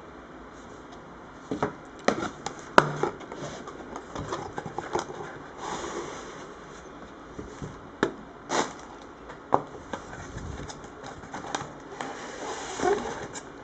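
Hands unboxing a camera lens: scattered clicks, taps and short rustles of packaging and lens handling.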